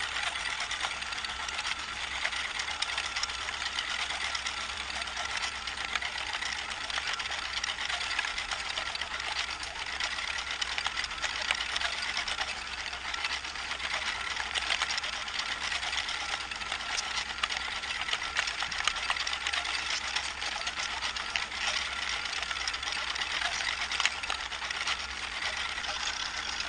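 Model bucket elevator running steadily, a small electric gear motor driving its chain of plastic buckets through black granules: a dense, even rattle of clicking buckets and trickling grains over a faint steady motor whine.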